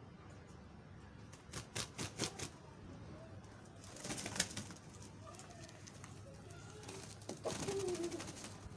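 White rooster and hen mating: a few sharp flaps and scuffles, then flurries of wing-flapping as the rooster mounts the hen, with a short low call from one of the birds near the end.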